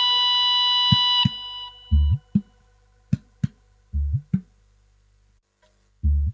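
A held keyboard chord cuts off about a second in. Then a hand drum plays sparse strokes: a deep booming stroke about every two seconds with short, sharper hits between, typical of a dangdut gendang being tried out.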